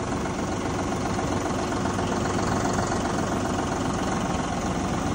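John Deere 5055E tractor's diesel engine running steadily.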